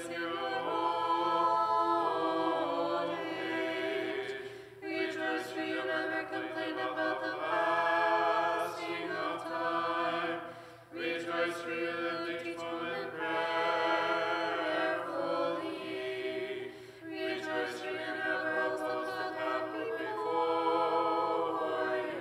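Small church choir singing Orthodox liturgical chant a cappella, in long held phrases with brief breaks between them, about five, eleven and seventeen seconds in.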